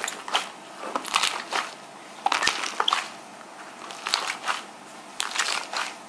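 Light-blue slime being squeezed, folded and pressed by hand, with bursts of wet crackling and popping from trapped air about once a second.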